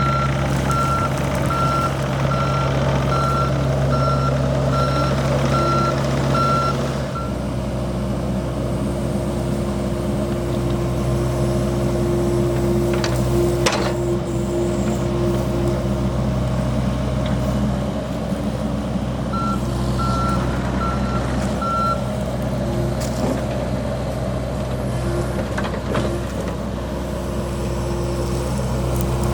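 John Deere 60G compact excavator's diesel engine running steadily, with its travel alarm beeping for the first seven seconds or so and again briefly about twenty seconds in, and one sharp knock about halfway through.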